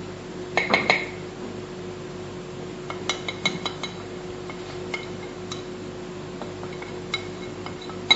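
Metal utensils, a wire whisk and a spoon, clinking against a stainless steel pot and a mixing bowl as flour is spooned in and whisked into melted chocolate batter. There is a cluster of clinks about a second in, a quick run of them around three to four seconds, and a few single taps later, over a steady low hum.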